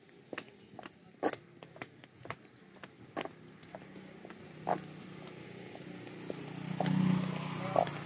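Footsteps on a concrete street, about two a second, while a motor vehicle's engine comes up close and passes, loudest about seven seconds in.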